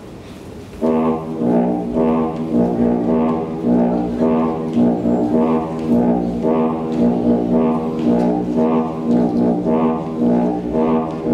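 Music starts about a second in and plays on with a steady, repeating rhythm, led by brass-sounding instruments.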